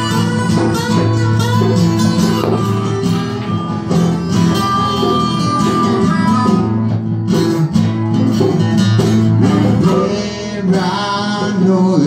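Live band music: a harmonica played into a vocal microphone over strummed electric and acoustic guitars, with long held notes, and a brief drop in loudness a little after ten seconds.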